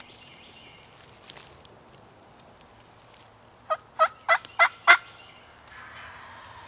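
Wild turkey gobbler gobbling once in the middle: a quick, loud rattle of about five notes lasting just over a second.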